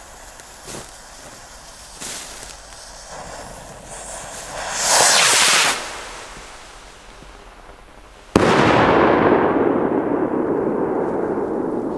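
Firework going off: a loud hiss lasting about a second, then about three seconds later a sudden loud bang whose rumble rolls on and fades over the next few seconds. Faint pops come before, near the start and about two seconds in.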